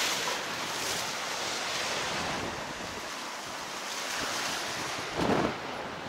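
Rough sea with waves breaking and washing on a pebble shore, with wind buffeting the microphone. A brief louder burst comes about five seconds in.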